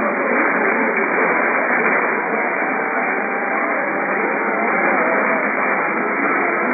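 Steady radio static from a radio receiver, muffled with no high end, with a faint, indistinct signal wavering underneath.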